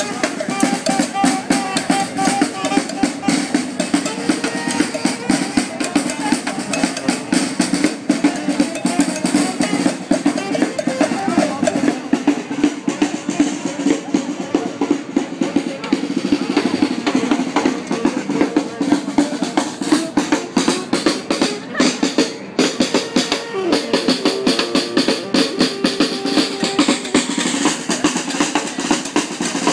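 Snare drum played with sticks in fast, busy patterns and rolls, with a saxophone playing along.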